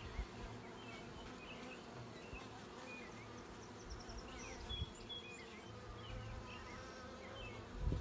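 Honeybees buzzing around an open top bar hive, a steady low hum. Faint short high chirps are scattered through it, and there is a soft thump near the end.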